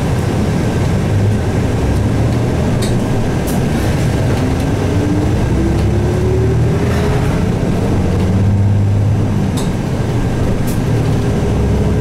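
Isuzu Erga city bus's 7.8-litre 6HK1-TCC turbo-diesel engine pulling the bus along, heard from the front of the cabin: a low drone with a whine that rises steadily in pitch from about four seconds in as the bus gathers speed.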